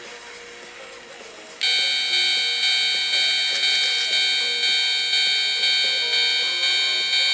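Japanese railway level-crossing warning bell starts abruptly about one and a half seconds in, then rings on in a steady repeated clang of about one and a half strikes a second.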